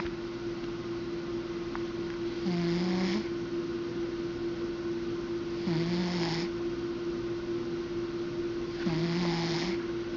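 A sleeping cat snoring: three snores about three seconds apart, each under a second long, over a steady hum.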